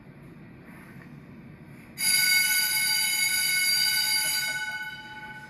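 Fire alarm bell starts ringing suddenly about two seconds in, loud and steady, set off as a test alarm. It stops about a second before the end, fading and ringing on faintly.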